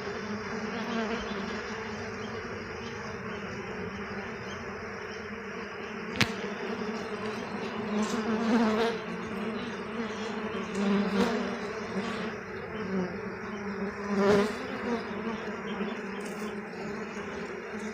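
A dense crowd of honeybees buzzing steadily at a hive entrance where robber bees are fighting the colony, swelling louder several times as bees fly close past. One sharp click about six seconds in.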